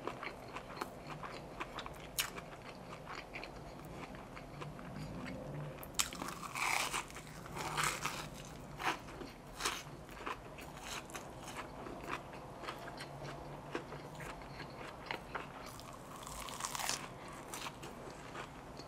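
A person biting and chewing a cinnamon-sugar coated churro donut: crisp crunches and wet mouth clicks, with a cluster of louder bites in the middle.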